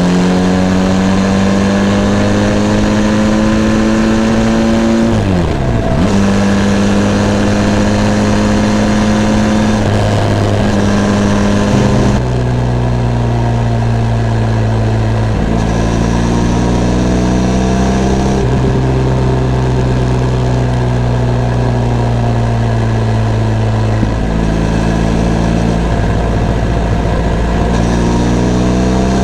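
Benelli TRK 502 X motorcycle's parallel-twin engine under way, its pitch climbing slowly through each gear and dropping abruptly at several gear changes, with wind and road noise underneath.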